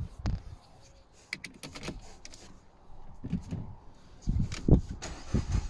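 A run of light clicks and knocks of the ignition key and switchgear being handled in a car's cabin, with a few louder thumps in the last two seconds.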